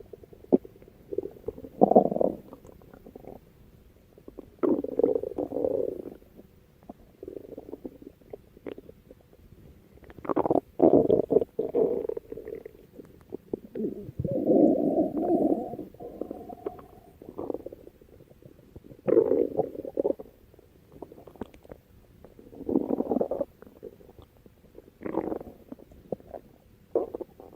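Stomach growling in irregular bouts, some brief and some lasting a second or two, with quieter gaps between them; the longest bouts come around the middle.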